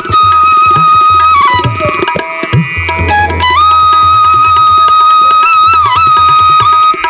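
Background music: tabla-style hand drumming under a sustained melody line that bends in pitch. The melody breaks off briefly about two seconds in, then returns.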